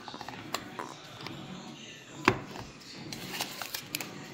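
Plastic remote and cardboard box insert being handled as the remote is lifted out of its box: light clicks and taps, with one sharper knock about two seconds in and a few quick clicks near the end.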